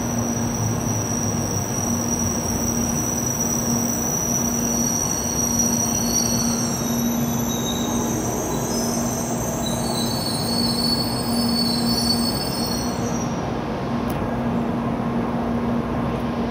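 An N700A Shinkansen train running slowly into the platform and braking to a stop, with a steady rumble and a high-pitched squeal that cuts off a few seconds before the end as the train halts. A steady low hum runs underneath.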